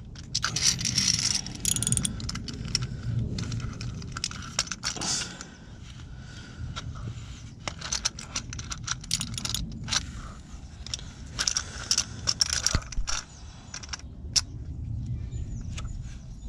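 Irregular metallic clinks and scraping from a cup-type oil filter wrench being fitted and turned on the cartridge oil filter housing, with low handling rumble beneath.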